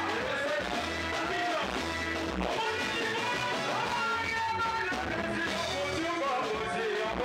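Live Congolese rumba band music: electric guitars over bass and a drum kit, playing steadily.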